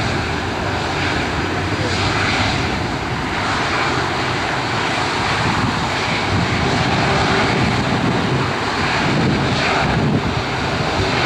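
Airbus A330-200 airliner taxiing past, its twin turbofan engines running at taxi power with a steady jet rush.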